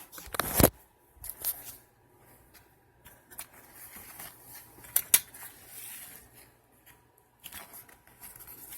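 Rustling and handling noises with scattered sharp clicks, the loudest about half a second in and about five seconds in: the sewn layers of material being handled and pulled from the walking foot sewing machine, its motor stopped.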